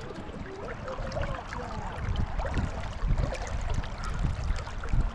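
Shallow river current flowing and trickling, with a low rumble growing louder from about two seconds in.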